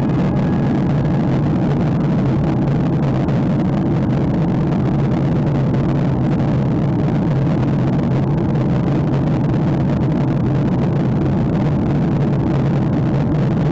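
Steady cabin noise of a jet airliner on descent: engine and airflow noise heard from inside the cabin, a constant low drone.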